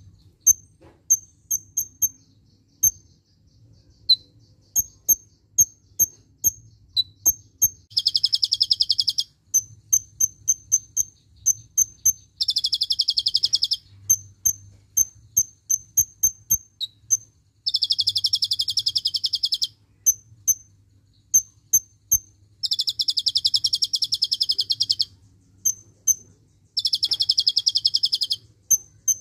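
Kolibri ninja sunbird singing: runs of sharp, high chirps broken five times by long, very rapid trills of about two seconds each, the 'tembakan' (shot) phrases in cililin style that keepers use to tutor other songbirds.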